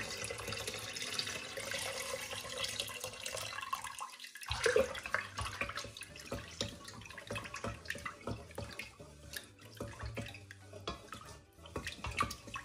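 Jackfruit syrup poured from a tin can into a pot of milk mixture, a steady splashing trickle for about four seconds. After that comes a run of small irregular clicks and knocks as the last of the can is shaken and worked out over the pot.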